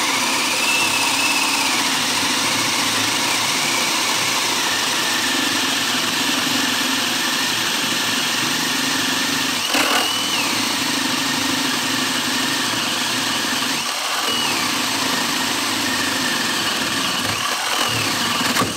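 HART cordless drill turning a 1 1/8-inch spade bit through wood under heavy load, the motor running loud and continuous. Its whine sags as the bit bites, picks up briefly about ten and fourteen seconds in, and the drill stops right at the end.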